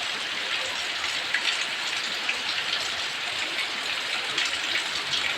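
Heavy rain pouring down steadily, a dense hiss with scattered sharp drop splashes.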